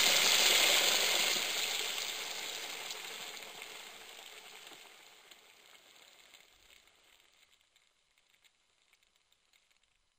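Sizzling hiss like food frying, loudest at the start and fading steadily away over several seconds.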